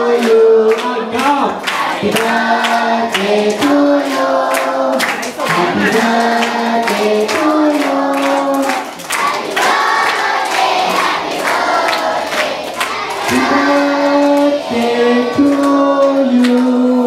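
A group of voices singing a song together in unison, in long held notes that step from pitch to pitch. Sharp short beats, like claps or percussion, run through the singing.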